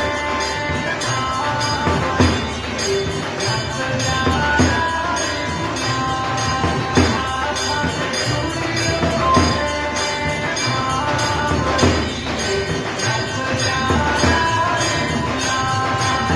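Devotional aarti music: a melody of held notes over steady percussion, with a heavy beat about every two and a half seconds.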